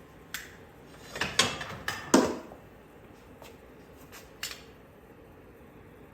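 Clacks and knocks of hard objects being handled and set down, half a dozen or so in the first few seconds, the loudest about two seconds in, then quieter with a few faint clicks.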